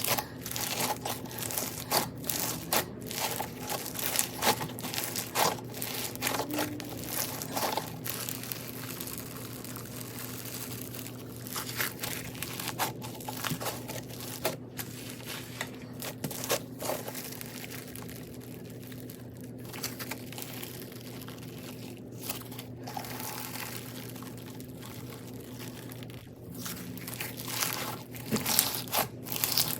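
Crunchy slime packed with more beads than slime being squeezed and kneaded by hand, giving dense, irregular crackling and crunching. The crackles come thickest in the first few seconds and again near the end.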